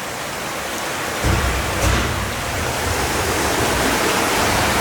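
Heavy rain and rushing floodwater, a steady hiss growing slightly louder. About a second in, a low rumble joins it and continues.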